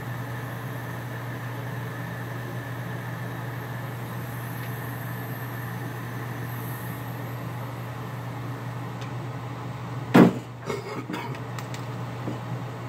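Handheld gas soldering torch burning with a steady hiss and low hum. About ten seconds in comes one loud clack, followed by a few lighter knocks and clicks.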